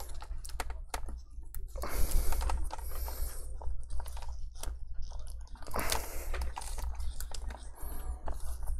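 Laptop LCD panel being pried away from strong double-sided adhesive tape with a pry tool: irregular crackling and scraping with many small sharp clicks, in three longer stretches about two, six and eight seconds in.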